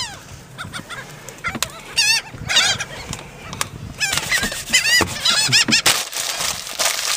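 A flock of gulls calling, with many short repeated calls overlapping one another. The calls come in busy runs around two seconds in and again from about four seconds on.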